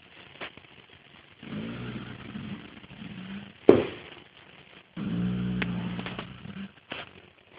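A sleeping five-and-a-half-month-old colt snoring: two long, low, buzzing snores about three seconds apart. A brief sharp noise between them is the loudest sound.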